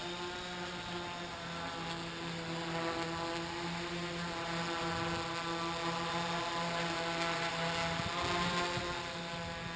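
Camera hexacopter's electric motors and propellers humming steadily as it hovers and climbs just overhead, the pitch wavering slightly.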